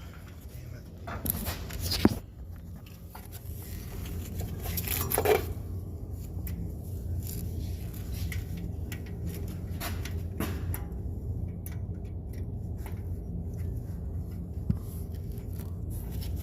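Hand tools working on the starter mounting bolts under a truck: scattered metal clicks and knocks, with a few louder clanks at about one to two seconds in and again about five seconds in. A steady low hum runs underneath.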